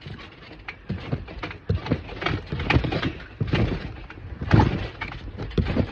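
Irregular thumps of someone bouncing on a wet trampoline mat, about one to two a second and varying in strength, with rustling noise between them.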